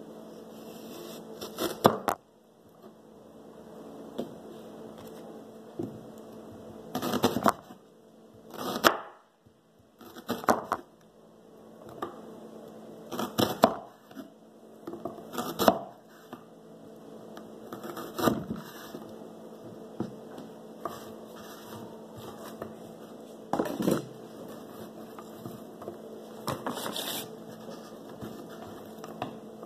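Chef's knife slicing red onion on a wooden cutting board: short runs of knife strokes knocking on the board every few seconds. A steady low hum runs underneath.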